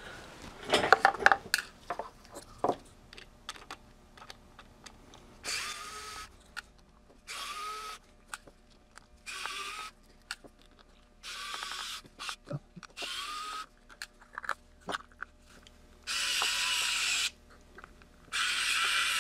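Pen-style electric precision screwdriver running in seven short bursts of about a second each, backing screws out of a small metal amplifier enclosure, with a rising whine at the start of each run. Light clicks and taps from handling the screws and box come between the runs.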